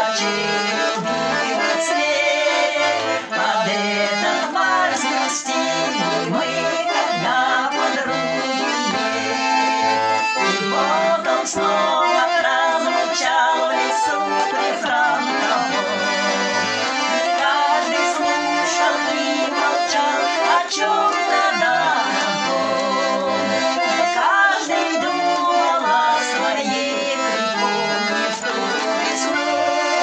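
Two women singing a Russian song to a garmon, a Russian button accordion, with the accordion's low bass notes keeping a steady beat under the melody.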